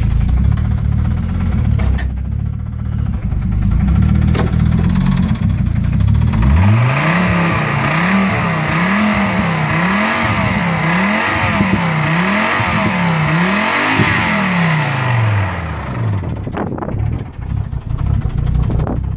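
Volvo V70 T5's turbocharged five-cylinder engine running at idle, then revved about six times in quick succession, each rev rising and falling, before settling back to idle. The owner reports this engine as knocking.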